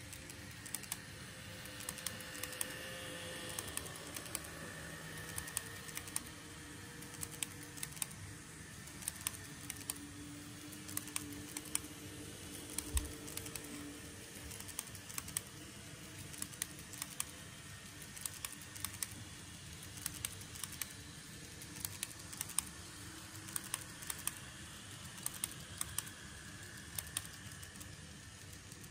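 N-gauge model electric train, a TOMIX E231 series, running along plastic track: a steady faint motor hum with frequent sharp clicks as its wheels pass over the rail joints.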